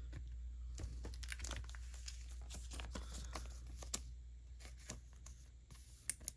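Plastic crinkling and scraping as a trading card is handled and slid into a clear plastic sleeve: a dense run of small crackles that thins out toward the end.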